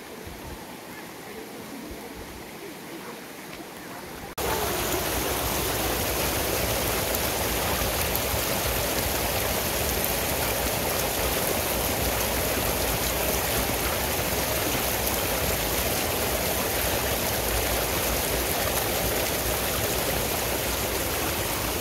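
Water rushing in a mountain stream, a steady roar of flowing water. It is softer for the first few seconds, then abruptly much louder and closer about four seconds in.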